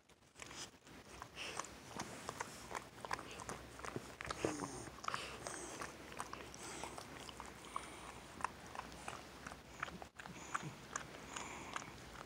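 Shih Tzu licking a pitbull's face: a run of irregular wet licking and smacking clicks, with one short falling squeak about four and a half seconds in.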